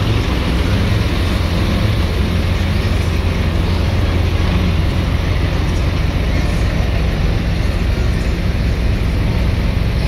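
Heavy diesel truck engine idling close by, a steady low rumble.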